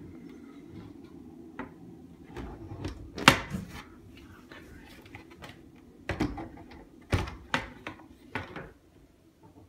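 Knocks and clatters from a prefab bathroom's plastic panels and fittings as they are stepped on and handled, about half a dozen in all, the loudest about three seconds in, over a faint low hum.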